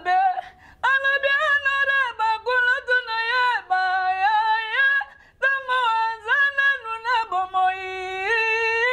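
A man singing unaccompanied in a high voice, holding long notes that slide from pitch to pitch, with two short breaks: about half a second in and about five seconds in.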